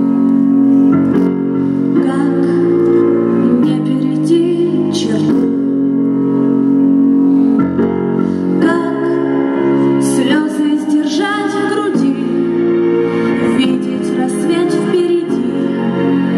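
A woman sings into a microphone over a backing track with keyboard chords, both played through a loudspeaker.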